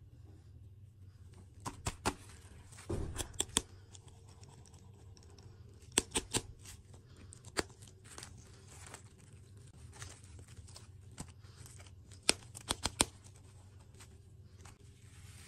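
Fingers handling and tapping hard plastic toy lollipop balls, giving sharp plastic clicks in clusters of two to four, with a brief crinkle about three seconds in, over a low steady hum.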